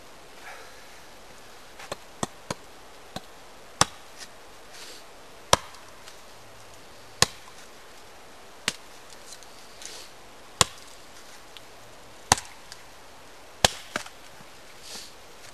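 Chopping strikes into a wooden pole held upright on the ground: single sharp chops about every one and a half to two seconds, with a few lighter knocks between them.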